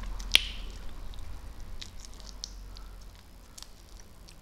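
Shell of a large fried prawn being peeled by hand: a sharp crack about a third of a second in, then a few faint scattered clicks and crackles.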